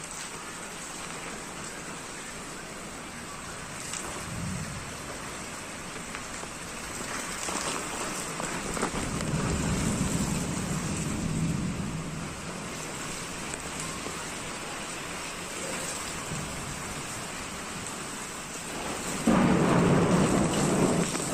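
Heavy rain falling steadily, with thunder rumbling twice: a rolling rumble about a third of the way in, and a louder one that comes on suddenly near the end.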